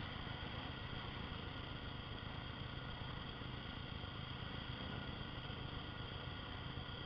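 Single-cylinder four-stroke dual-sport motorcycle running steadily under way, heard through a helmet-mounted camera with a steady rush of wind and road noise.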